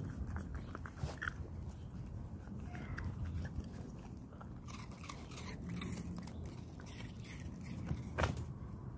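Cocker spaniel licking and chewing fruit pieces in a small plastic cup: irregular wet smacks and clicks, with a sharper click about eight seconds in.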